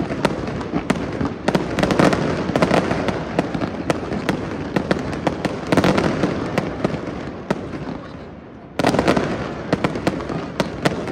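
Fireworks display going off: a rapid string of sharp cracks and bangs over a continuous wash of sound, easing off about eight seconds in before a sudden loud new volley.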